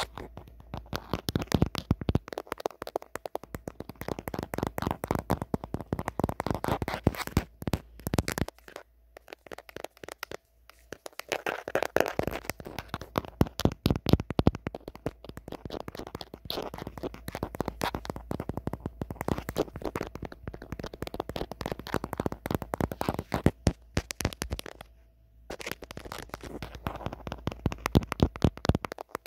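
Natural fingernails tapping rapidly on the back and camera of an old phone: dense runs of sharp clicks, pausing briefly a couple of times.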